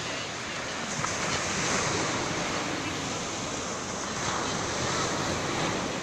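Small sea waves breaking and washing up a pebble beach: a steady hiss of surf that swells twice as waves come in.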